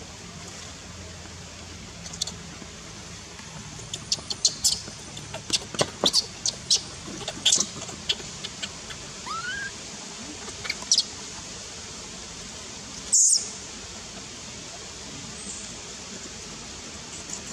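Newborn macaque crying with a run of short, high-pitched squeaks and chirps, thickest in the first half, then one louder squeal a little past the middle.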